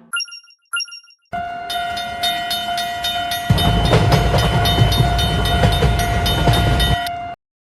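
Railroad crossing and train sound effect. Two short pings are followed by a steady tone with a fast clanging rhythm of about three strokes a second, and about two seconds later the low rumble of a passing train joins in. It all cuts off abruptly.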